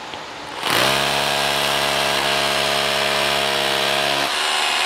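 Corded drill boring a hole into a concrete slab: a steady motor whine over gritty drilling noise. It starts under a second in and runs for about three and a half seconds, then cuts off and fades near the end.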